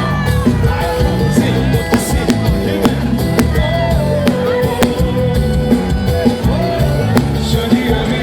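Live forró band music at full volume: a steady drum beat and a repeating bass line, with a melody line held over them.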